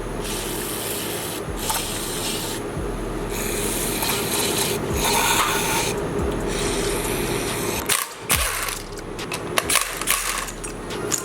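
Rasping scrubbing on engine parts being cleaned, coming in strokes of about a second with short pauses. Scattered clicks and knocks follow near the end, over a steady low hum.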